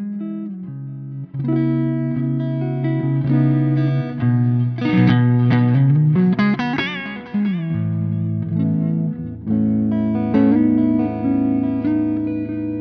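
Electric guitar reamped through a Soldano SLO100 clone tube amp head, playing a mix of chords and single notes. There is a wavering vibrato near the middle, and sustained low notes later on.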